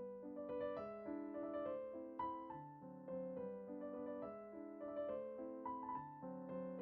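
Soft background piano music, a gentle melody of sustained notes over a simple accompaniment.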